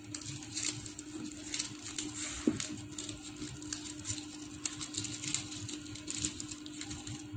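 Paper rustling and crinkling in short, irregular scrapes as a fringed paper strip is rolled into a coil by hand, over a steady low hum.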